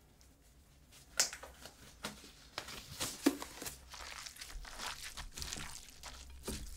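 Thin disposable vinyl gloves crinkling and rustling as they are pulled onto the hands, starting about a second in with a sharp crackle and then a dense run of quick crackles.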